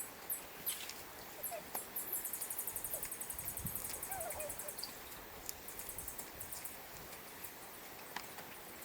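Faint, short wavering squeaks from small animals among scattered sharp clicks, with a quick run of ticks between about two and three and a half seconds.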